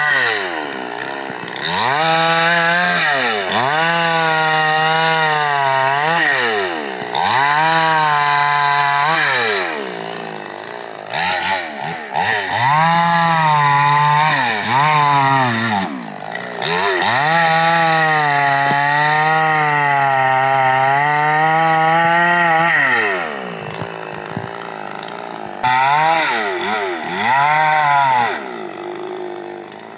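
Petrol chainsaw cutting through tree branches: the engine revs up and holds high in about five stretches of a few seconds each, its pitch wavering under load, and drops back to idle between cuts.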